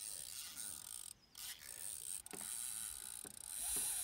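Spinning reel's drag clicking steadily as a hooked northern pike pulls line out, breaking off briefly about a second in.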